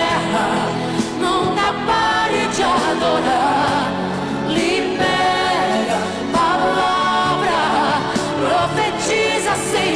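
Christian pop song: a sung vocal line over a band accompaniment.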